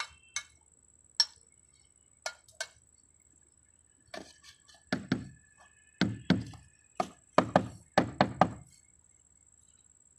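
Knocks on terracotta barrel roof tiles as they are tapped down into fresh mortar. A few light clicks at first, then from about four seconds in a quick run of about a dozen louder knocks.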